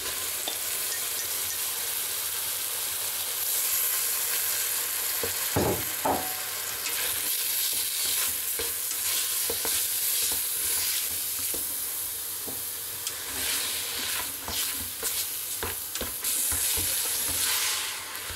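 Ground beef frying and sizzling in olive oil in a steel pot, starting to brown, while a utensil stirs and breaks it up, scraping and knocking against the pot. Two louder knocks come about five and a half seconds in.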